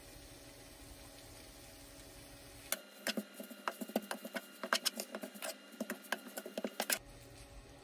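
A wooden spatula tapping and scraping against a nonstick frying pan while fried rice is stirred and tossed. It starts about three seconds in as a run of quick, irregular taps and stops shortly before the end.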